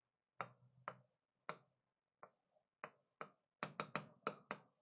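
Pen or stylus tapping against a touchscreen whiteboard while handwriting: about a dozen faint, sharp ticks, spaced out at first and coming quickly near the end.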